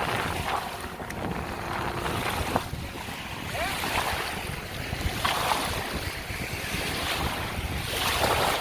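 Wind buffeting the microphone over lapping, splashing lake water, with brief splashes every second or so.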